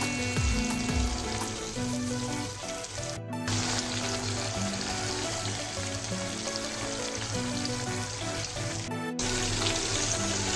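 Pigeon meat frying in hot oil in a pan, with a steady sizzle under a background song. The sound cuts out briefly twice, about three seconds and nine seconds in.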